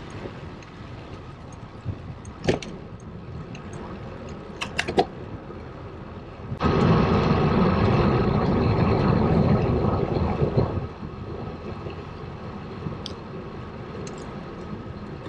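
Wind and road noise on a bicycle rider's camera microphone while riding. Sharp clicks come about two and five seconds in, and a much louder stretch of wind rumble starts suddenly about halfway through and lasts about four seconds.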